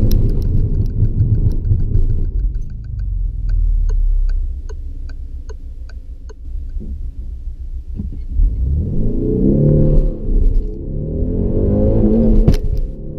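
Peugeot 308 GT's 1.6-litre turbocharged four-cylinder car slowing from speed with heavy road rumble that dies away as it stops. A steady clicking follows, about two a second. Then the engine revs hard from standstill, rising in pitch through the gears with a change about ten and a half seconds in and another near the end.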